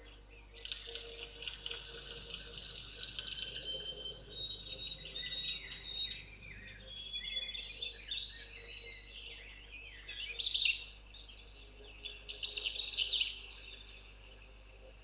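Birds chirping and calling over one another, with a few high notes held briefly and louder bursts of chirping about ten seconds in and again around twelve to thirteen seconds in.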